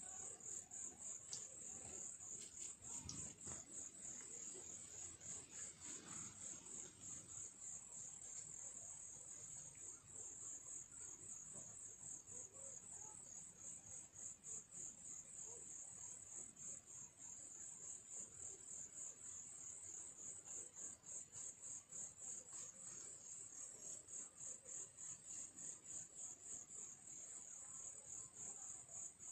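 Faint, continuous high-pitched insect trill: a fast, even pulsing chirr, typical of a cricket, with a few soft ticks in the first few seconds.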